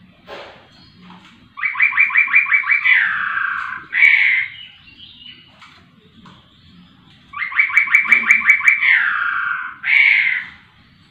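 Caged poksay rowo singing the same loud phrase twice: a fast rattle of about eight notes, then a downward-sliding note, then a short loud note.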